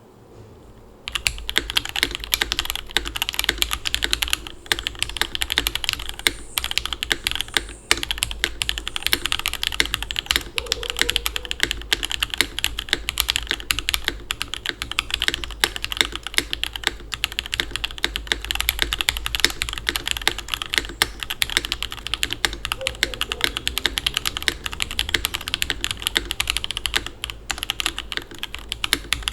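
Continuous fast typing on an NK87 aluminium-case mechanical keyboard with lubed Jwick Red linear switches, a carbon fibre plate and DMK keycaps, in a rapid run of key clacks. The typing starts about a second in.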